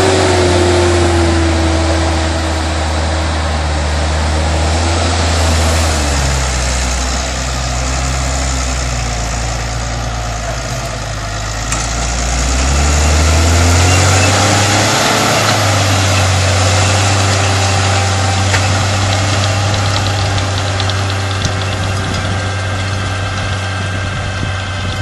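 New Holland T6090 tractor's six-cylinder diesel engine running under load while pulling a front disc harrow and a rear 3 m Kuhn rotary harrow through tilled soil. The engine note sags about a quarter of the way in and climbs back about halfway through. It grows fainter near the end as the tractor draws away.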